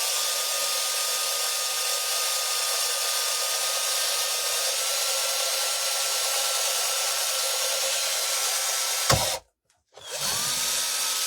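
Power drill boring a pilot hole into a wooden door hanger, running with a steady whine that steps up slightly in pitch about halfway through. It stops with a click after about nine seconds, then starts again about a second later and spins up briefly before stopping near the end.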